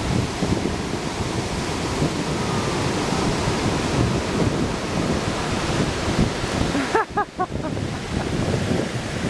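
Ocean surf breaking on a beach, with wind buffeting the microphone. A brief burst of a person's voice about seven seconds in.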